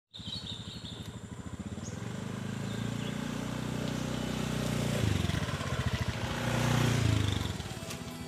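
Small automatic motor scooter's engine running as it rides off and past, growing louder, with the engine note rising about five seconds in and again near seven seconds, then fading as it moves away.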